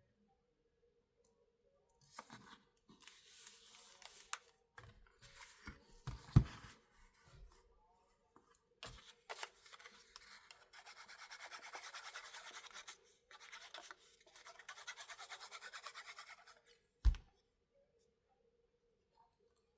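Bookbinding hand tool rubbing and scratching against a surface in two runs of quick, even strokes, amid handling noise. A sharp knock comes about six seconds in and another near the end.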